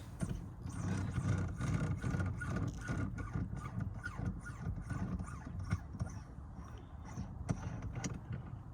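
Aftermarket shift knob being screwed onto a car's threaded shift lever by hand: a string of small irregular clicks, taps and rubbing from the knob, threads and surrounding shift boot being handled.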